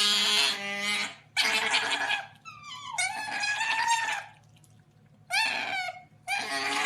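An animal calling over and over: about five drawn-out cries, each under a second long, with short pauses between them.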